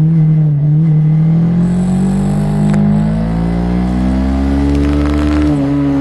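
Honda CB500 parallel-twin engine pulling under throttle, its note rising steadily as the bike accelerates, then dropping sharply at an upshift near the end. Crackling from the poorly configured external recorder is heard just before the shift.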